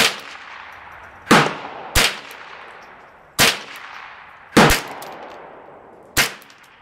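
Gunshots from a semi-automatic firearm fired in a slow, uneven string: six shots about a second apart, each with a long echo dying away behind it.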